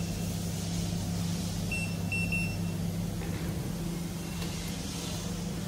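Short, high touchscreen beeps from the control panel of a QCW300W fiber laser welding machine as its buttons are pressed: one at the start, then a quick run of several about two seconds in. A steady low hum from the running machine sits underneath.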